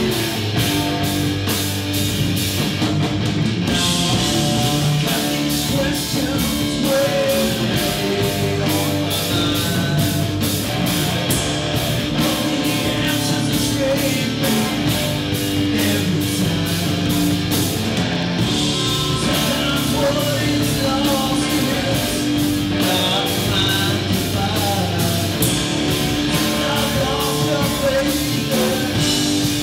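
Rock band playing live: electric guitar and bass guitar over a steady, even beat.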